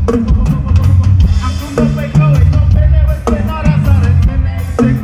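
Live ska band music played loud over a concert PA: drum kit with kick and snare hits and a strong bass line driving a steady beat, with melodic lines over the top.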